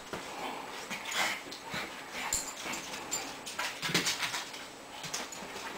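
Two Shih Tzus play-wrestling on a bed, making short, irregular dog noises throughout, the loudest about four seconds in.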